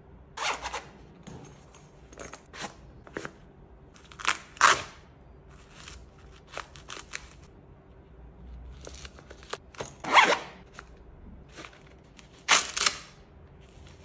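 Hook-and-loop (Velcro) patches being peeled off and pressed onto a fabric pouch's loop panel: several short tearing rasps about half a second long, with lighter fabric-handling clicks between.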